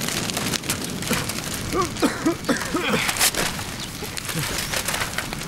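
A bonfire of paper account books crackling as more books are flung onto it, with irregular thumps and crackles throughout. A few short pitched sounds rise and fall about halfway through.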